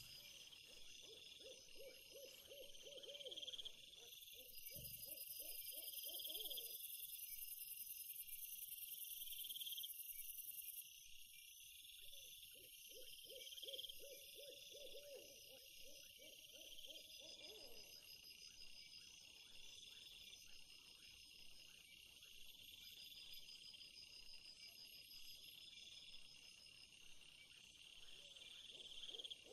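Faint wild-animal calls: a low, wavering hooting call repeated in two runs, in the first few seconds and again around the middle, over a steady high chirring of insects.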